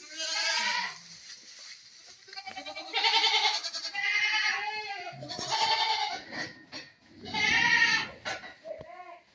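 Goats bleating, about five loud wavering calls one after another, with a few fainter short bleats near the end.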